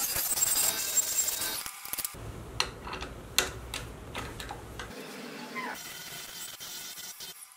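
Wood lathe cutting boxwood: a hollowing tool shearing inside the spinning piece gives a loud, even hiss of shavings for about two seconds. Then come a run of sharp metallic clicks as the scroll chuck is worked with its key, and near the end a lighter cut on the face of the piece.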